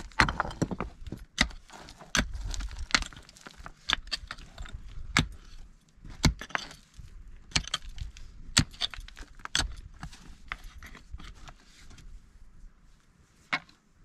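Pickaxe digging into stony ground: irregular sharp strikes of the metal head on rock and earth, roughly one a second, with loosened stones clinking and scraping between the blows.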